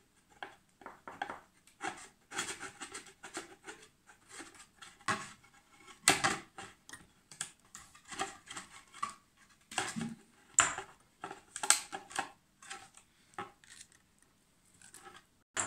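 Thin plastic handle strips cut from a fabric softener bottle being worked and pierced with an awl: irregular clicks, crackles and scratches of plastic, with a few sharper snaps, the loudest about six, ten and a half and twelve seconds in.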